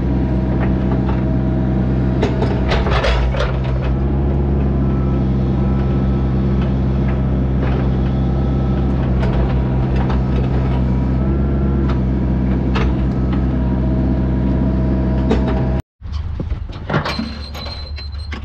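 Diesel engine of a compact construction machine running steadily at a constant speed, with a few knocks about two to three seconds in. Near the end the sound cuts off abruptly and a quieter, different machine sound follows.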